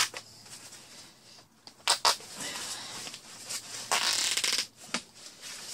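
Rustling of nested fabric hash-sifting bags being lifted and handled, in several bursts, with two sharp clicks a little under two seconds in.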